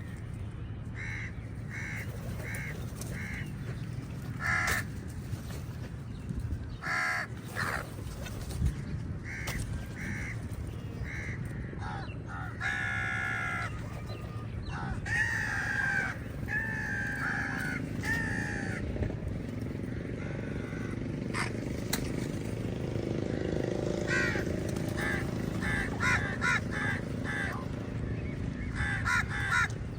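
Crows cawing over and over in runs of short, harsh calls, with a few longer calls in the middle, over a steady low background rumble.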